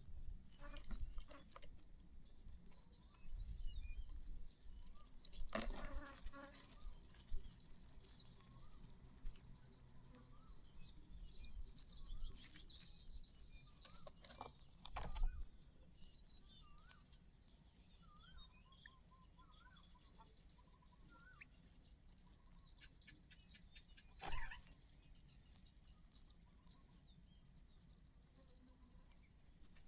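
Nestling birds cheeping over and over, short high-pitched begging calls several times a second, as chicks do at feeding. A few brief knocks sound among them.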